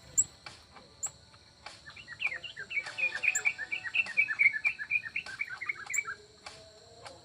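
A small bird twittering: a fast run of chirps starting about two seconds in and lasting about four seconds, with a sharp click just at the start.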